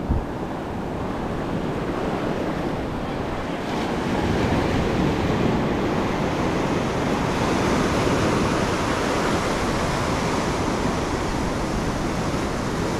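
Ocean surf breaking and washing up the sand at the shoreline, a steady rush of water and foam that swells louder about four seconds in.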